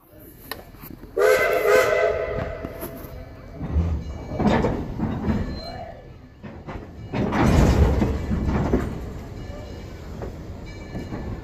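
A steam locomotive's chime whistle sounds one blast of several tones together, lasting about a second and a half, then its exhaust gives two heavy chuffs a few seconds apart as it starts the train, with the train rumbling between them.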